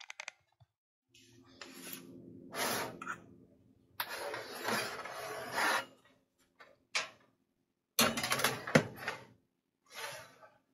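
Metal baking pans and the door of a gas-range oven being handled: rustling and scraping as the oven is opened and the pan set is slid in, with a cluster of sharp metal knocks and clatter about eight seconds in.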